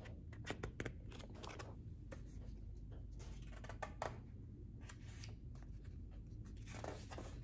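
Pages of a picture book being handled and turned: a string of faint paper rustles and crackles.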